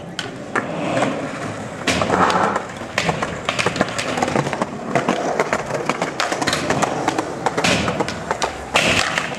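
Skateboards rolling on concrete, with a rough rolling noise and many sharp clacks of boards and wheels hitting the ground and ledges.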